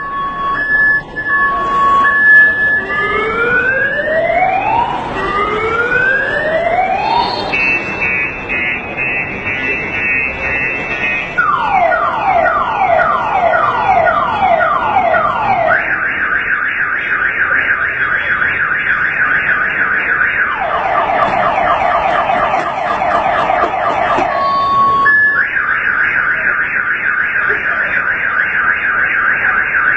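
Car alarm siren sounding continuously and cycling through its tone patterns: alternating two-note beeps, then slow rising whoops, a fast warble, rapid repeated falling chirps, and a quick high trill.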